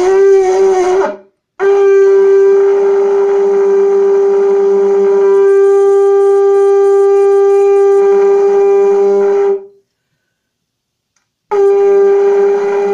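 Conch shell trumpet blown with buzzed lips, like a trumpet, sounding one loud note on G, a little sharp. It gives three blasts: a short one with a wavering pitch at the start, a long steady one of about eight seconds, and another beginning near the end.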